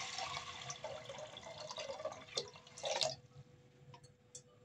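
Water poured into a stainless steel pot of sago pearls, the stream tapering to a trickle and drips over the first couple of seconds. A few light knocks come between two and three seconds in.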